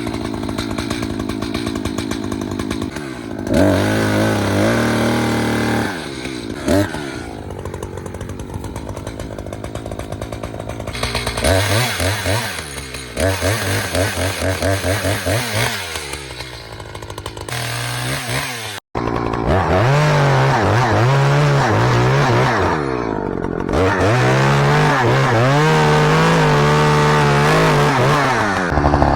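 Chainsaw running at full throttle and cutting into a dead snag for the felling cut, its pitch dropping and rising again and again as the chain bites into the wood and frees up. The sound breaks off for an instant about two-thirds of the way through, then the saw carries on.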